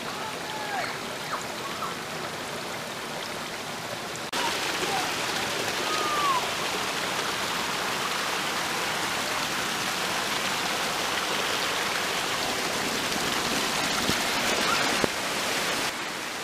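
Water from a small creek waterfall splashing steadily as thin streams fall over rock ledges, growing louder about four seconds in when the water spilling over mossy rock is close, and dropping back near the end.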